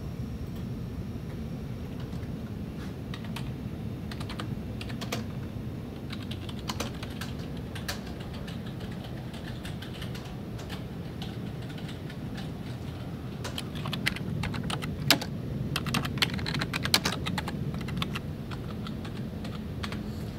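Typing on a computer keyboard: scattered key clicks that quicken into a louder flurry about two-thirds of the way through, over a steady low background hum.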